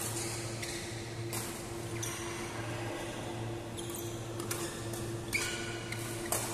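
Badminton doubles rally: several sharp racket strikes on the shuttlecock about a second apart, with brief shoe squeaks on the court floor, over a steady low hum.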